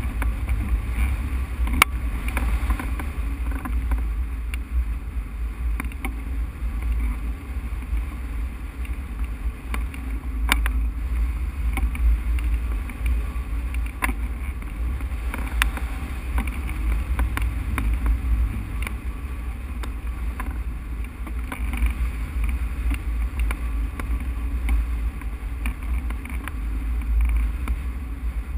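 Wind rushing and buffeting over a camera mounted on a hang glider's wing in flight, a steady low rumble with a few sharp clicks now and then.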